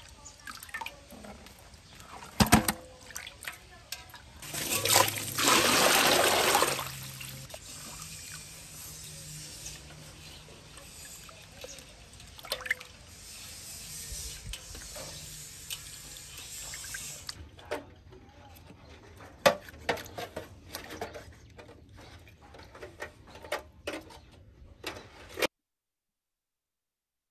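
Water splashing and sloshing in an aluminium basin as hands rub and turn a freshly caught fish to wash it, with the loudest splashing about five seconds in. After about seventeen seconds the water stops, leaving scattered light clicks and rustles, and then the sound cuts off abruptly shortly before the end.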